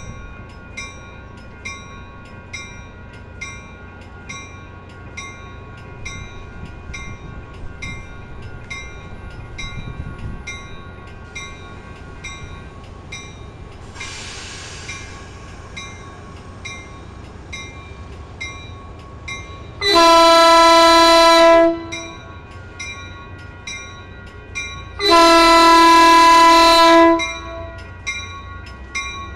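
A Caltrain commuter train rolls past with a low rumble while a bell dings steadily, about one and a half rings a second. Midway there is a brief hiss of air, and about two-thirds of the way through the train's horn sounds two long blasts, each about two seconds, the loudest sounds here.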